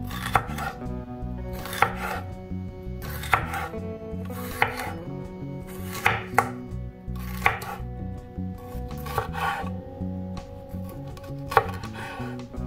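Santoku knife slicing a red bell pepper into strips on a bamboo cutting board. Each cut ends in a sharp knock of the blade on the wood, about ten in all, spaced a second or so apart with a couple of quick pairs.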